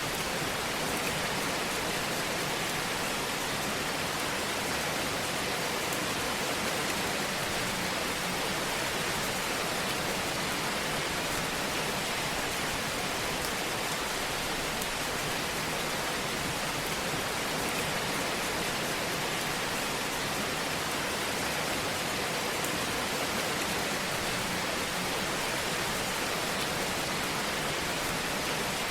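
Wood fire burning in a fireplace: a steady hiss with many small, faint crackles.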